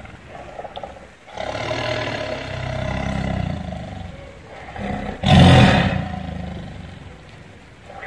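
Tiger growling and roaring: a long low growl through the first half, then a short grunt and one loud roar a little past five seconds in that trails off.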